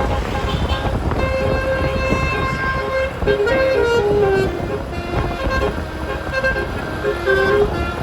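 Roof-mounted 12-note telolet bus horn playing a tune of stepped notes, over a low rumble.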